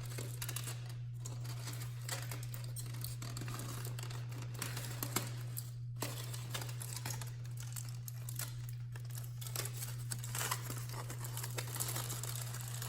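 Paper towel crinkling and rustling in irregular strokes as it wipes up around a newly fitted motorcycle oil filter, over a steady low hum.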